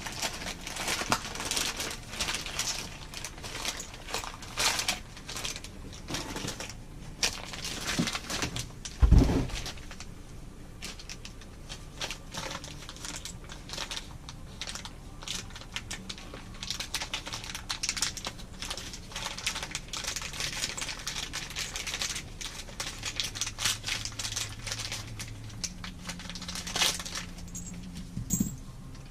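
Many small clicks and light clatter of hands handling toilet mounting hardware (bolts, nuts, washers) and tools, with a louder dull thump about nine seconds in.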